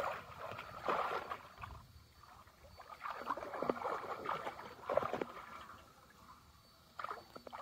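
Shallow pond water sloshing and splashing in irregular bursts as hands work inside a conical bamboo polo fish trap, feeling for fish. Quieter stretches fall about two seconds in and again near six seconds.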